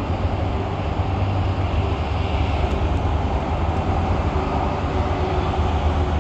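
Diesel train engine running steadily, a deep low rumble with a faint steady hum above it.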